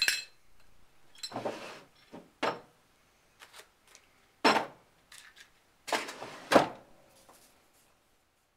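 Zippo lighter that won't light: a sharp metallic clink at the start, then about five short scraping strikes of the flint wheel, spaced a second or so apart, with no flame catching.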